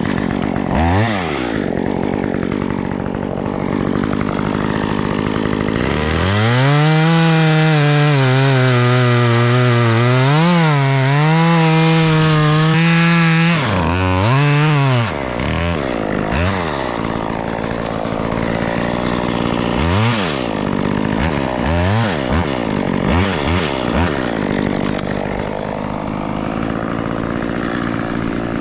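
Two-stroke chainsaw engine revved in quick throttle blips, then held at high revs for about seven seconds with a brief dip midway. It drops back and is blipped several more times.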